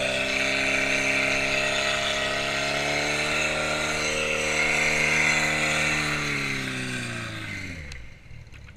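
Portable fire pump engine running at high, steady speed, then its pitch falls and it winds down to a stop about eight seconds in.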